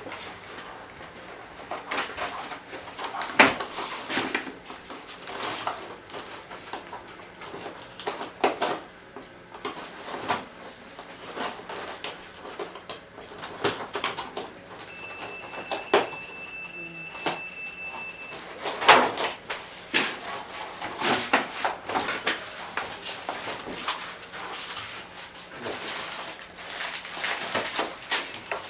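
Scattered knocks, scrapes and rustles of a TV carton and its packing being handled and opened. About halfway through, a steady high-pitched tone sounds for about three seconds.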